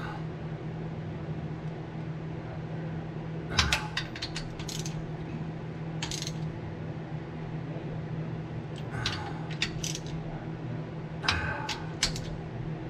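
Hand wrench clicking and clinking against metal in short bursts as the starter's mounting bolts are worked on a race-car engine, over a steady low hum.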